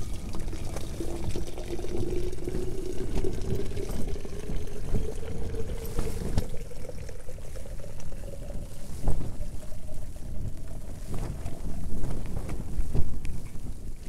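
Hot water poured from a kettle into a bottle, the pouring note rising steadily in pitch as the bottle fills and stopping about nine seconds in. A low rumble of wind on the tent runs underneath.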